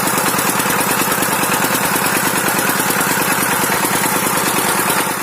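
Dongfeng 12 hp single-cylinder diesel engine running steadily with an even, rapid beat, driving an NS 100 irrigation water pump.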